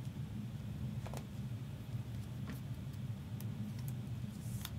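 Faint scattered clicks and light taps from trading cards and card sleeves being handled, over a steady low hum.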